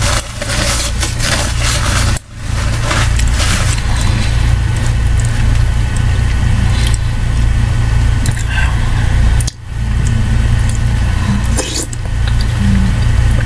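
Close-miked eating of chicken and rice soup: a metal spoon scraping and clinking in a ceramic mug, with slurps and chewing, over a steady low hum. The sound cuts out briefly twice.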